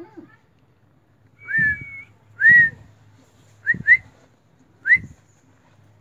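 A run of short, clear whistles, most of them quick upward glides. The first is paired with a held note, the next rises and then falls and is among the loudest, then come a quick pair and a last rising whistle.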